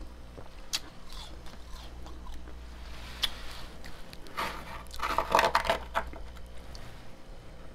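A metal spoon scraping and scooping into thick, fluffy freezer frost, making crisp crunching, loudest for about a second and a half past the middle. A couple of sharp clicks come earlier, and a low steady hum runs underneath.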